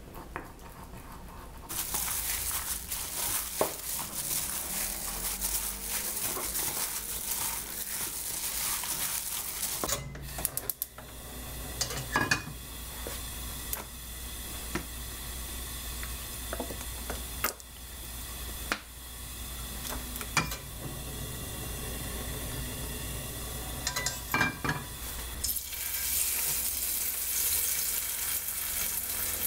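A wooden spoon stirring thick gochujang sauce in a bowl, then a few sharp clicks and knocks of kitchenware around a frying pan. Near the end, sauce-coated pieces sizzle in hot oil in a nonstick pan.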